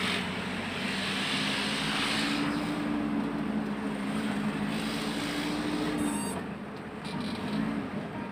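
Engine and road noise heard from inside a moving vehicle, with a steady engine hum that falls in pitch and quietens about six seconds in as the vehicle eases off.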